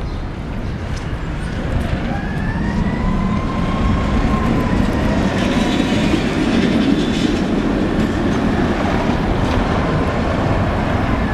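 Tatra T3SU tram running past on street track: the rumble of its steel wheels on the rails, building over the first few seconds as it draws close, with a thin steady whine from about two seconds in.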